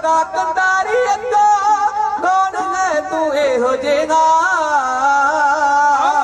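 Dhadi music: a sarangi plays a sliding, wavering melody over the steady beat of dhadd hand drums, with no sung words.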